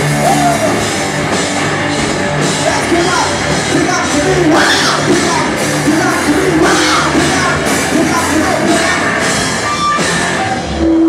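Live rock band playing loud, with drums, guitars and a singer singing and yelling over them.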